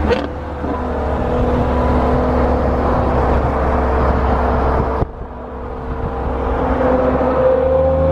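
Supercar engine and exhaust running steadily with a deep drone. The sound cuts off sharply about five seconds in, drops in level, then builds back up over the next two seconds.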